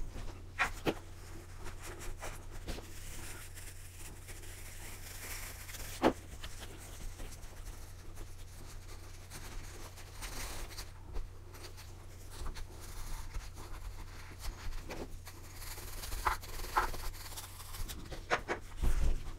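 Soft brushing and rubbing as a paintbrush and then a cloth towel dust a bookshelf speaker's cabinet, with a few sharp light knocks as the speaker is handled. A steady low hum runs underneath.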